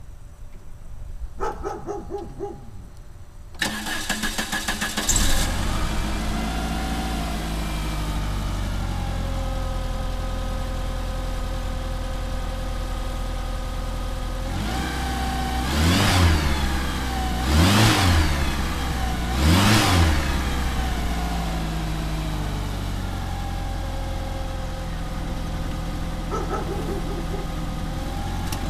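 1988 Plymouth Reliant's four-cylinder engine started cold: after a brief pulsing tone, the starter cranks for about a second and a half and the engine catches, its fast idle dropping over the next few seconds. It is revved three times about two seconds apart, then idles steadily.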